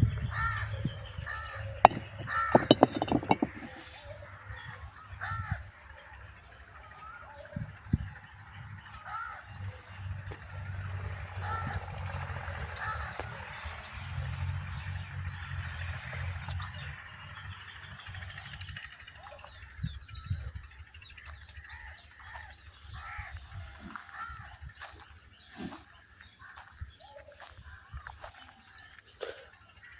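Village birdsong: crows cawing again and again over the chirps of smaller birds. A few sharp clicks come about two to three seconds in, and a low rumble runs through the middle.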